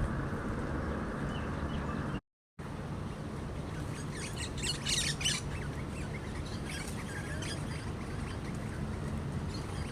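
Small birds chirping in short high bursts, a flurry about four to five seconds in and more a little later, over a steady low outdoor rush. The audio cuts out completely for a fraction of a second about two seconds in.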